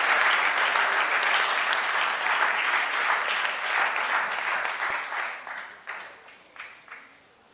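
Audience applauding, dense at first, then thinning from about five seconds in to a few last scattered claps and dying away.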